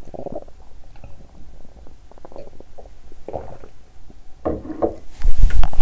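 Human stomach growling and gurgling on an empty stomach after exercise, in several short bursts that get louder, the strongest a little before the end. Near the end a much louder rustling noise comes in over it.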